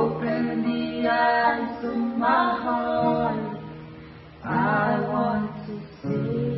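Worship song sung to acoustic guitar accompaniment, in two sung phrases with a short lull between them.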